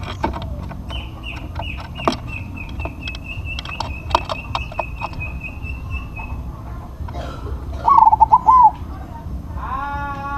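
Zebra dove (perkutut) cooing: a short, loud burst of wavering coo notes about eight seconds in. Before it, a fast run of high repeated notes, falling slightly in pitch, goes on for several seconds over scattered clicks, and another bird call starts near the end.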